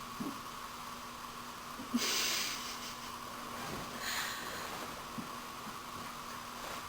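A woman's sharp breath out through the nose about two seconds in, then a fainter one about two seconds later, over a faint steady hum.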